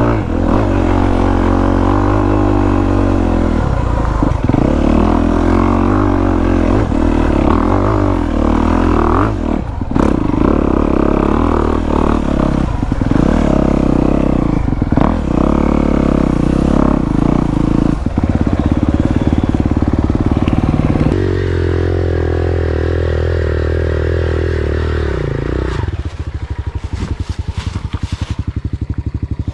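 Dirt bike engine running on the trail, its pitch rising and falling with the throttle, with some clatter and scraping. Near the end it settles to a lower, even, pulsing idle.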